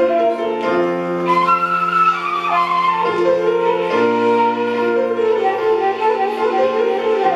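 Instrumental music: a flute plays a slow, gliding melody over piano accompaniment with held chords.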